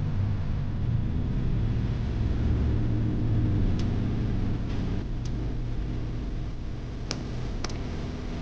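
A steady low mechanical hum with four light, sharp clicks in the second half.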